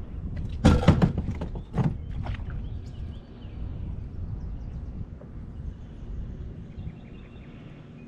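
A few sharp knocks and clatters about a second in and again near two seconds, over a steady low rumble.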